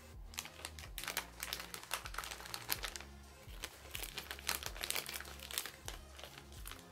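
Plastic snack wrapper crinkling in the hands as it is handled and pulled open, many quick crackles in a row, with faint background music underneath.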